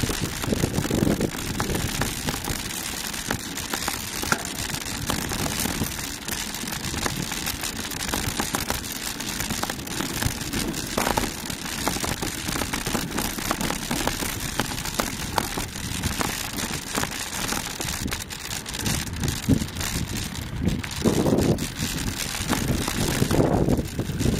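Wind buffeting the microphone over a dense crackle and rattle from travelling along a rough, rocky dirt trail, with many small clicks and rumbling swells.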